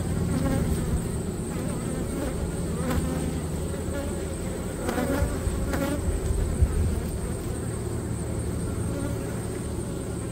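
Honey bees buzzing: the steady hum of a colony crowding a brood frame lifted from an open hive.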